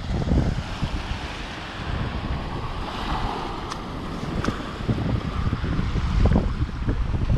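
Small waves washing onto a sandy beach, with wind buffeting the microphone as a steady low rumble.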